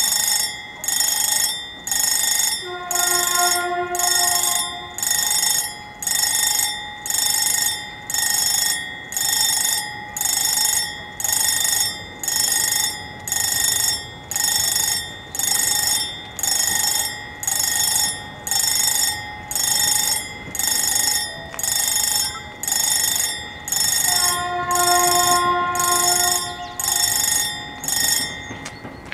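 WSSB level crossing's electric warning bells ringing in a steady pulsing rhythm, warning that a train is coming; the ringing stops shortly before the end. A lower steady tone sounds briefly twice under the bells, a few seconds in and again near the end.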